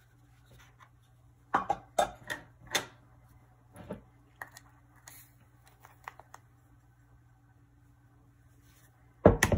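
Plastic measuring cups knocking and scraping against a sugar jar and mixing bowl as sugar is scooped and tipped in: a few sharp clicks and knocks about one and a half to three seconds in, fainter taps after, and a louder knock near the end, over a faint steady hum.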